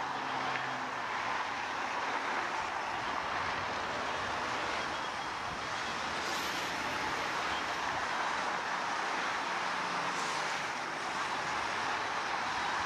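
Freeway traffic passing below: a steady, even rush of tyres and engines from many cars, with no single vehicle standing out.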